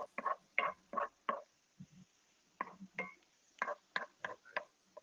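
Spatula scraping and tapping against a cast-iron skillet of sautéed greens: a quick run of short strokes, about three a second, then a pause and a few more.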